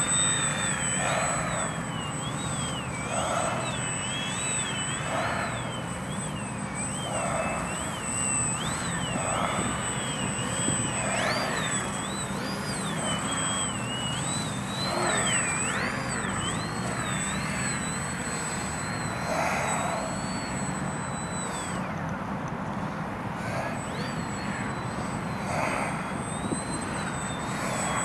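Radio-controlled Slick aerobatic model plane flying, its motor whine rising and falling in pitch as it manoeuvres, with wind noise underneath.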